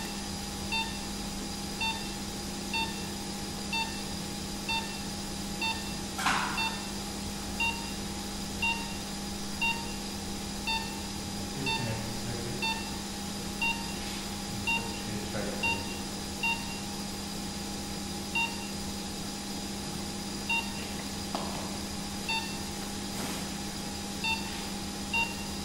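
Anaesthetic patient monitor beeping its pulse-oximetry tone about once a second, steady in pitch, one beep per heartbeat of the patient. Under it runs a steady hum of theatre equipment, with a brief rustle about six seconds in.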